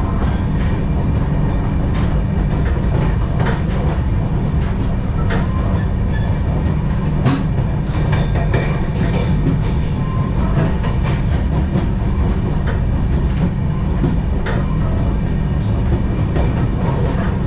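Tejas Express running through a station without stopping, heard from inside the coach: a steady low rumble with irregular clicks of the wheels passing over rail joints.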